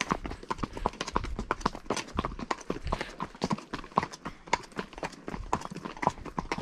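Hooves of several horses clopping along a dirt lane: a quick, uneven run of knocks, several a second, as the hoofbeats of the different horses overlap.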